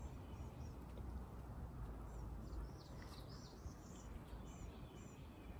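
Songbirds chirping in the woods: a scattered series of short, high chirps, over a faint low outdoor rumble.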